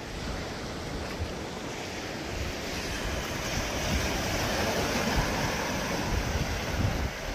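Surf breaking and washing over a rocky shore, a steady rush that swells a little midway, with wind buffeting the microphone.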